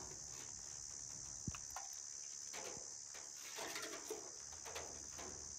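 Faint, steady high-pitched drone of insects, with a few faint clicks and light knocks, one of them about a second and a half in.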